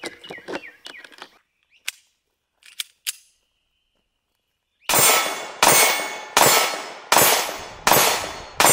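Short clicks of 9mm cartridges being pressed into a pistol magazine with a hand loader. After a pause, a Shadow Systems CR920X 9mm pistol fires six shots at an even pace, about one every three-quarters of a second, each shot ringing briefly.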